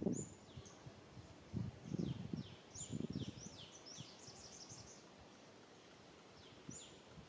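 Small birds calling with quick, high chirps that sweep downward, a rapid run of them in the middle and a single one near the end. Low, muffled bursts of noise come and go under them in the first half.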